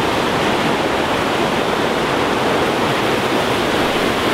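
Waterfall rushing close by: a loud, steady wash of falling water.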